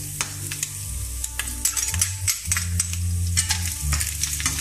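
Diced bacon and freshly added chopped garlic sizzling in olive oil in a frying pan, with many sharp crackles of spitting fat as it is stirred with a spatula. A low steady hum runs underneath.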